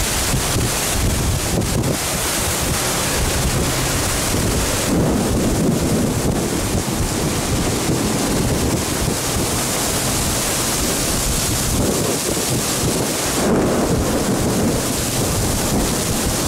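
Torrential rain pouring down in a windy storm: a steady, loud rushing, with wind buffeting the microphone and swelling twice, about five seconds in and again near thirteen seconds.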